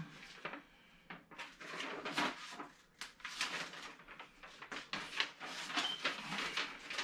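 Irregular rustling and crinkling of packaging being handled, a dense run of short scratchy crackles that grows busier after about a second and a half.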